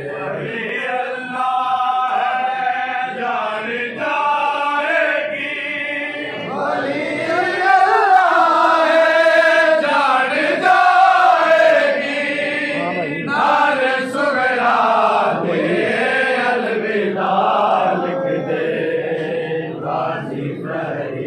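Men's voices chanting a noha, a Shia mourning lament, together in a rhythmic sung recitation; the chant grows louder about seven seconds in and stays strong for several seconds.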